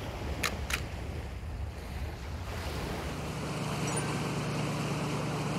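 Surf washing on a beach, with two short high clicks about half a second in. From about two and a half seconds, a fishing boat's steady engine hum under the rush of its wake, with wind on the microphone.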